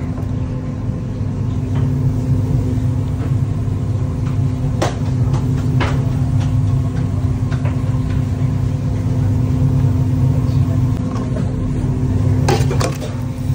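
Steady low rumble and hum of commercial kitchen machinery, with a few sharp clinks of a metal spoon against a steel cooking pot, about five and six seconds in and again near the end.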